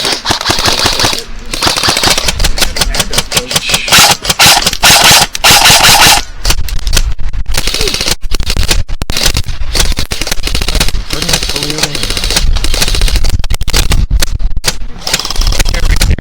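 Airsoft electric guns firing on full auto: a rapid mechanical rattle of shots in long bursts, loudest a few seconds in.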